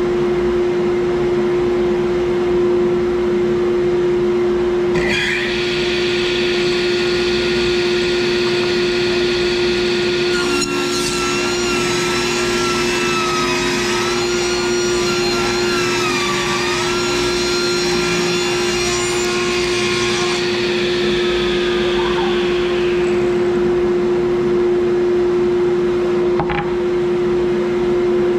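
Cabinet table saw running with a steady motor hum. From about five seconds in, the blade rips along the edge of a hardwood board to true it, adding a higher-pitched, wavering whine for about eighteen seconds. Then the blade spins free again.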